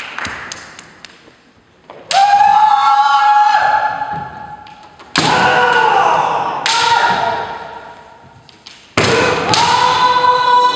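Kendo fencers' kiai: four long, loud, held shouts that start abruptly, echoing in the hall, with thuds of stamping feet and struck shinai or armour.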